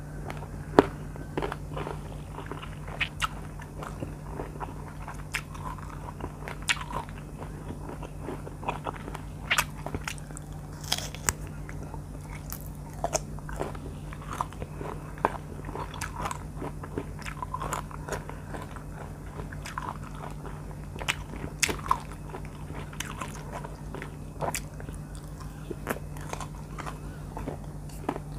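Close-miked biting and chewing of firm, sour green mango, with sharp crisp crunches scattered throughout over a steady low hum.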